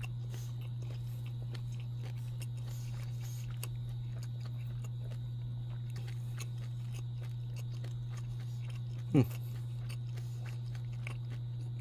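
Faint chewing of a bite of air-fried smoked Polish beef sausage, over a steady low hum. A brief falling tone about nine seconds in.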